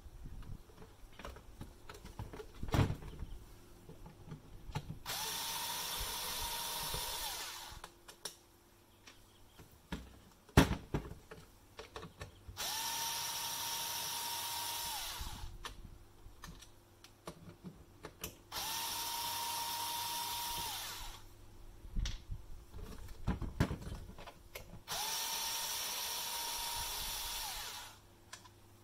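Cordless electric screwdriver with a Torx T10 bit running four times, about two and a half seconds each, to back out screws from a coffee machine's plastic housing. Each run has a steady motor whine that rises as it spins up and falls as it stops. Clicks and knocks from handling the parts come between the runs.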